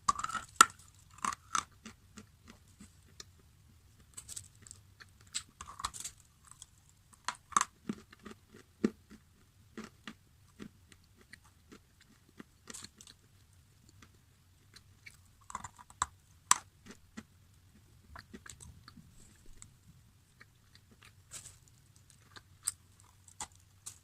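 Close-miked bites and chewing of crunchy food: irregular sharp crunches and crackles, with louder bites every few seconds between stretches of softer chewing.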